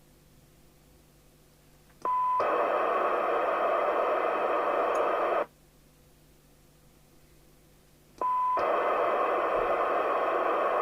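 CB radio receiver's squelch opening twice on its own: each time a click and a short steady beep, then loud hiss of receiver noise from the speaker for about three seconds that cuts off sharply, the second starting about six seconds after the first. The squelch is set right at threshold, so it opens on noise alone.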